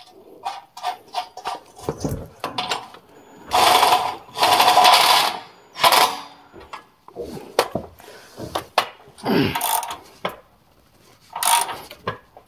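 A cordless Ryobi impact driver hammering in several short bursts as it runs the rock slider's mounting bolts into the frame, with small metal clicks and clinks of bolts and sockets being handled between the bursts.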